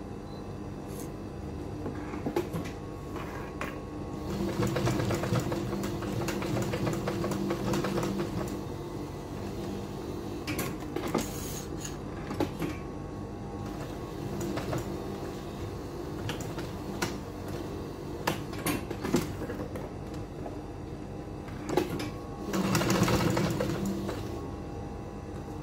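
Protex industrial sewing machine stitching leather in short runs: a longer run about four seconds in and a brief louder one near the end. Scattered clicks from handling the work come between the runs, over a steady low hum.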